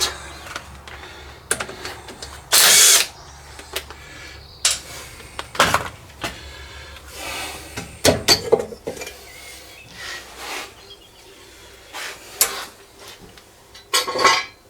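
A handheld power driver runs in short bursts several times, with metal clinks in between, as bolts and fittings are undone on a diesel cylinder head.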